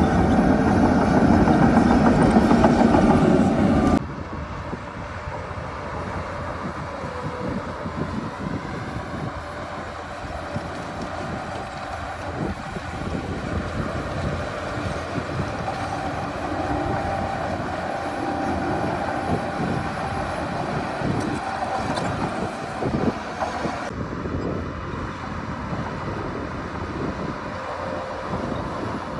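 Heavy diesel earthmoving machinery running under load, a steady engine rumble with clanking. It is loud at first, drops abruptly about four seconds in, and changes character again near the end.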